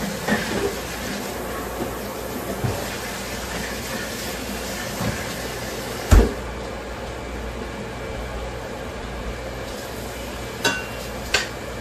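Bacon frying in olive oil in a saucepan, a steady sizzle. A utensil knocks once against the pan about six seconds in, and there are two sharp clinks near the end.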